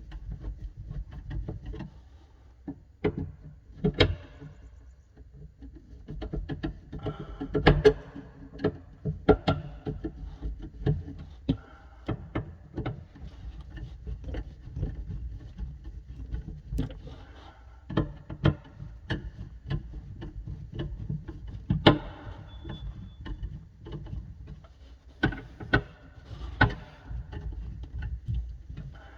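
Irregular clicks, knocks and scrapes of metal as the mounting screws on a garbage disposal's sink-flange mounting ring are tightened in turn, drawing the flange down to squeeze the plumber's putty into a seal.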